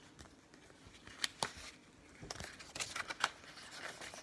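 A picture book being handled and its pages turned: a few sharp clicks and light paper rustling.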